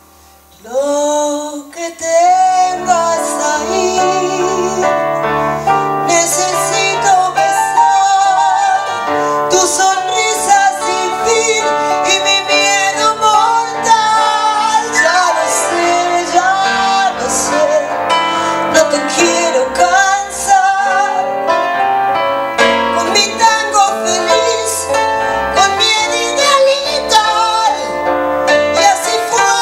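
Live band music with a woman singing: after a brief hush, her voice comes in about a second in with a rising note and goes on in long, wavering notes, backed by keyboard, bass and guitar.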